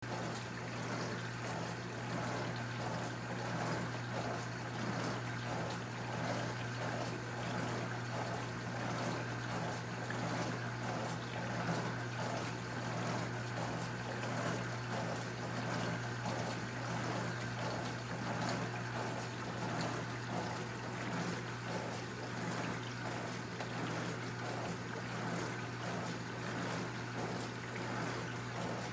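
Jaime tank-fed countertop dishwasher running its wash cycle. Its pump motor hums steadily while water sprays and splashes inside, in a quick, even pulsing.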